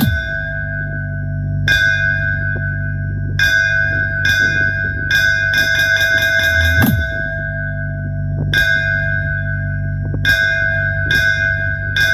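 Electronic bass-test music: a bell-like chime struck again every second or two over a deep, sustained bass, with a falling bass sweep about seven seconds in.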